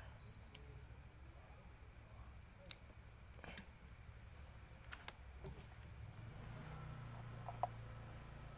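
Night insects chirring steadily in one high, even tone, with a few faint clicks and one sharper click near the end.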